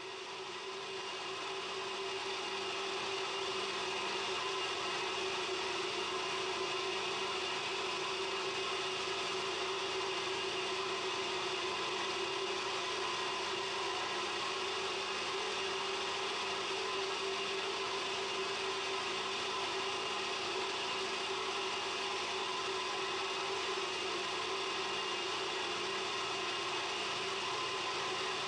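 A centrifugal gold concentrator running with a steady motor whir, while water and crushed-ore slurry pour through a chute onto its sieve. The sound grows a little louder over the first few seconds, then holds steady.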